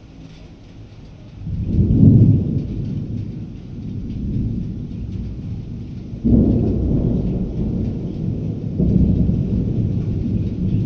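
Rolling thunder. A low rumble builds about a second and a half in and peaks soon after. A second peal breaks sharply around six seconds in and keeps rolling, swelling again near nine seconds.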